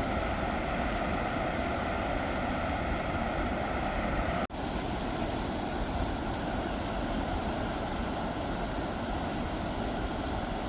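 Steady roar of floodwater pouring through the open spillway gates of Douglas Dam. It breaks off for an instant about four and a half seconds in.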